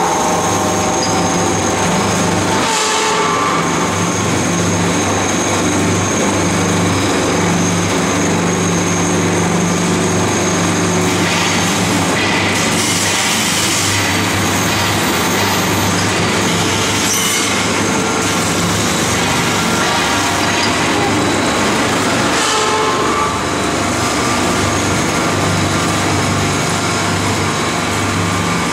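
Paper-pulp egg tray forming machine running: a loud, steady machine hum with a few spells of hissing air now and then.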